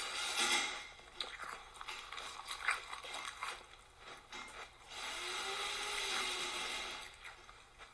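A person chewing a mouthful of Cap'n Crunch cereal close to the microphone, with loud, irregular crisp crunches.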